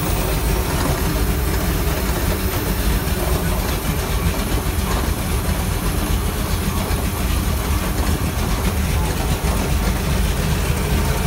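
MerCruiser 496 Mag HO big-block V8 boat engine with headers, idling steadily with a deep, even rumble and no revving.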